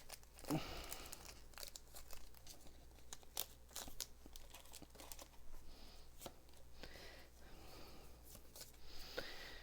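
A Pokémon TCG booster pack wrapper being torn open and handled: faint scattered tearing and crinkling with small sharp clicks.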